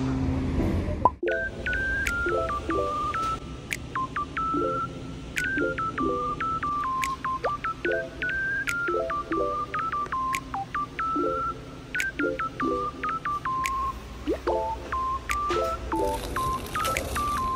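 Background music: electronic track with a high, beeping synth melody of short stepped notes over repeated short chords and light percussion.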